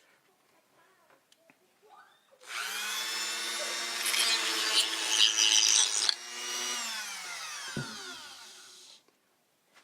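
Dremel 4000 rotary tool motor starting up with a high, steady whine, and about a second later rasping harshly against something. It then switches off and winds down in a falling whine, with a single low knock as it slows.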